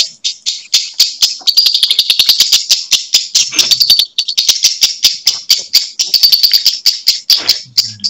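Lovebirds singing in the konslet style of Indonesian song contests: a fast, unbroken chatter of high, sharp chirps, several a second.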